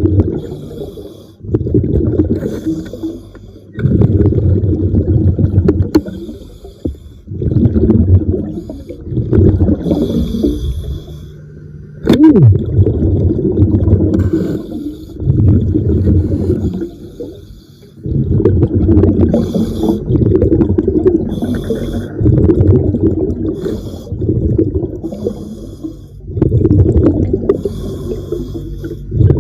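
A diver breathing through a regulator underwater: a low bubbling rumble on each exhale, in bursts about two seconds long every few seconds, with a fainter hiss of inhaled air between some of them.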